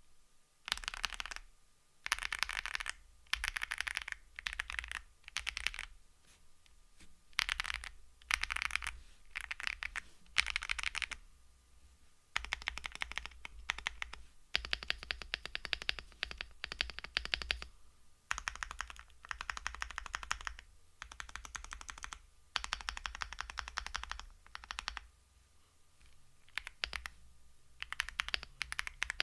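Yunzii AL71 aluminium mechanical keyboard in stock form being typed on. Rapid keystrokes come in runs of about a second, with short pauses between them.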